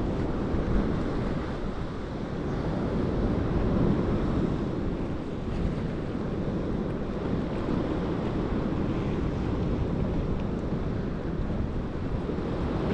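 Black Sea surf rolling in heavily on the shore in a continuous wash that swells and eases, with wind buffeting the microphone.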